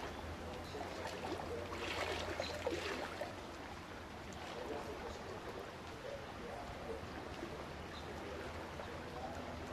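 Steady sound of running water like a stream, over a low steady hum, with faint voices in the background.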